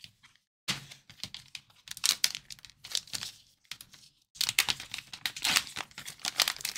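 A trading-card box opened and the foil pouch inside peeled and torn open: crinkling and tearing in three bursts, with a short pause a little past the middle.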